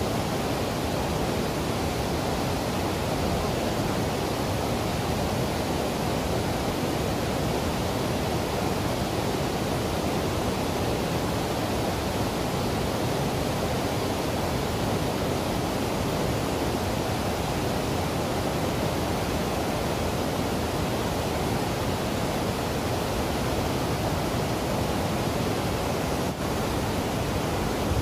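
Waterfall rushing steadily: an even, unbroken noise of falling water, deepest and strongest in the low and middle range.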